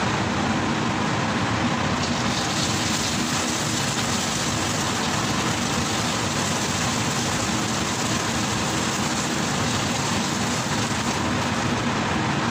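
Restaurant gas wok burner running steadily under a wok, with egg sizzling in hot oil as it is stirred with a metal ladle; the sizzle gets louder about two seconds in.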